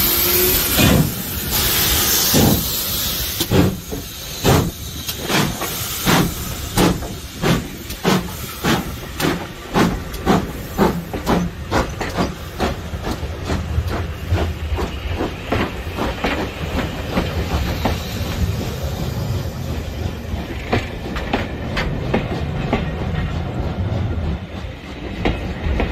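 Steam locomotive pulling away, its open cylinder drain cocks hissing at first, then exhaust beats quickening to about two and a half a second. The beats fade, leaving the rumble and clack of passenger coaches rolling past.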